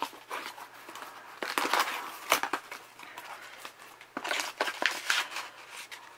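Cardboard box flaps being folded open and a paper sheet rustling as it is handled and lifted out, in irregular crinkles and scrapes, with one sharp knock a little over two seconds in.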